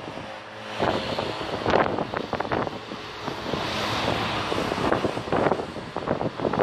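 Wind buffeting the microphone in irregular gusts, over the engines of a line of Corvettes driving by.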